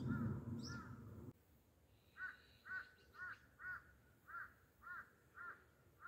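A bird cawing in a steady series of short calls, each rising and falling, about two a second. A low rumble runs underneath for the first second or so and cuts off suddenly.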